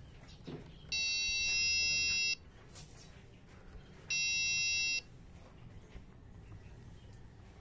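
An electronic buzzer sounds twice with a steady, buzzy tone: a long beep of about a second and a half, then a shorter one about three seconds later.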